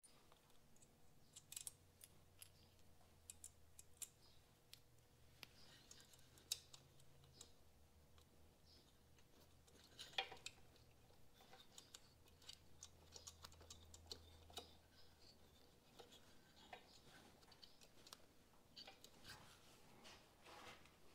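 Faint, scattered small metallic clicks and taps of hands fitting a carburetor to its engine intake and starting its mounting nuts, over a faint low hum that fades out about three quarters of the way through.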